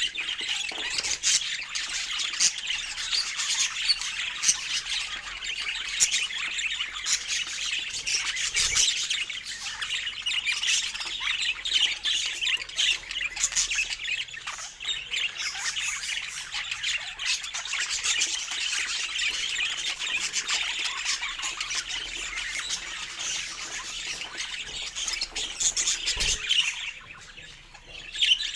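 Budgerigars chattering continuously with many quick chirps and squawks, easing off briefly near the end.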